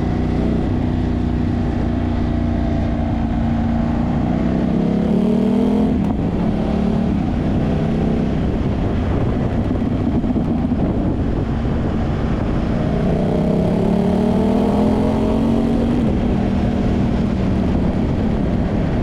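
Ducati Hypermotard V2's V-twin running through an Austin Racing dB-compliant titanium full exhaust with Inconel headers, under acceleration. The engine note climbs and drops sharply at an upshift about six seconds in, then climbs again and drops at another upshift later on.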